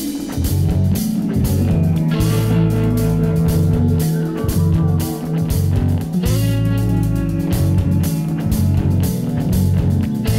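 Rock music with guitar, bass and a drum kit playing a steady beat.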